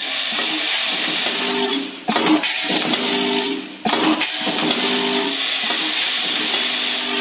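Small-packet packaging machine running: a steady motor hum with a constant hiss above it, dipping briefly twice as it works through its cycle.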